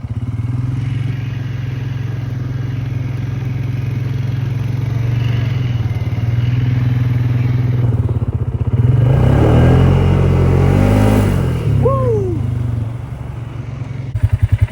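Polaris Sportsman ATV engine running steadily, then revving up for a couple of seconds just past the middle, its pitch rising and falling, before settling back to a lower, steady run.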